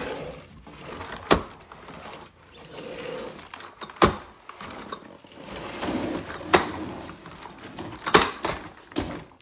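Hard plastic parts of a Dyson Ball Animal 2 vacuum's dust canister being handled: a handful of sharp clicks and knocks, one every second or two, with rubbing and shuffling between them.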